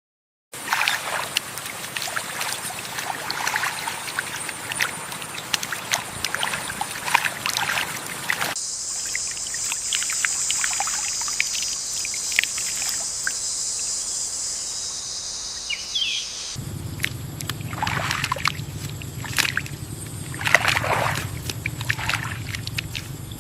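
Splashing water and rustling, in three segments that cut in and out abruptly. The middle part has a steady high hiss under the splashes, and the last part a low steady hum.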